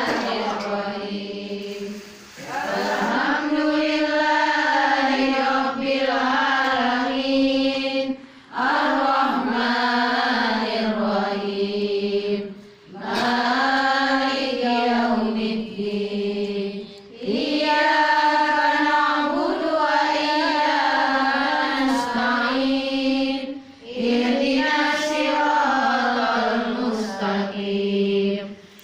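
A group of women chanting an Islamic wirid (dhikr litany) together in unison. The voices sing long repeated phrases of about five seconds each, with brief gaps between them.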